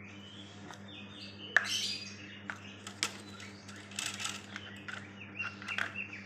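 Small cage birds chirping in short, repeated high notes, with a few sharp clicks and knocks from handling the cage.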